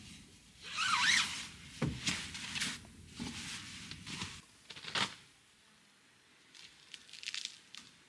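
Nylon shell of a puffy sleeping bag rustling and crinkling as it is shaken out and spread by hand, in a series of swishes with a few soft thumps. It goes quieter after about five seconds, then crinkles again near the end.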